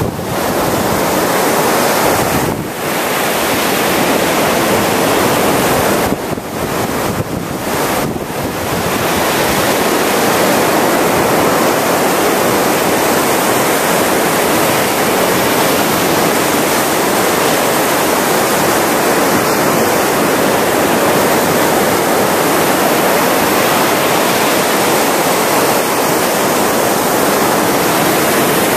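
Ocean surf breaking and washing onto a sandy beach: a steady rushing hiss, with a few brief dips in the first eight seconds.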